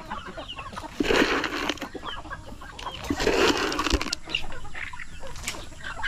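Chickens clucking and calling in a mixed backyard poultry flock feeding on scattered corn, with a couple of short louder bursts about one and three seconds in.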